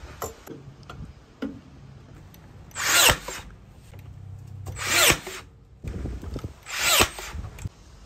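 Makita cordless nail gun firing three times, about two seconds apart, each shot a short burst that builds and cuts off sharply, fastening a brass pipe fitting to a timber stud. Light handling clicks come between the shots.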